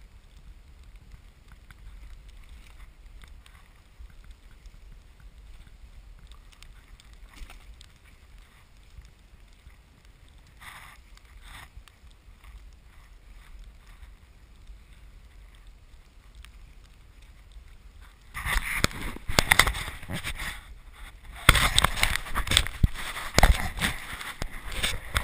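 Dog sled running over snow: a quiet steady hiss from the runners, then, about three-quarters of the way through, a loud rough scraping and rattling that drops away for a moment and comes back.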